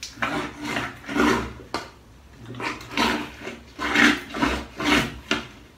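Home-made plunger, a stick wrapped in t-shirts, pumped up and down in a clogged bathroom floor drain: a rough surge of sound with each stroke, about two or three strokes a second, with a short lull about two seconds in. The pumping is meant to force water down and push the blockage through.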